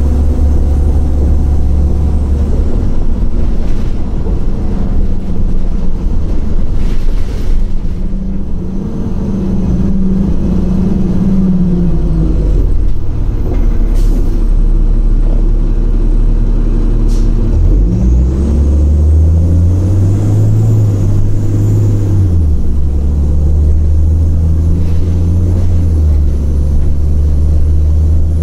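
Cummins ISL inline-six diesel engine of a 2006 Orion VII bus running loud and steady. About eight seconds in, its note climbs and then drops; it climbs again past the middle and then settles. A few short clicks or knocks come through along the way.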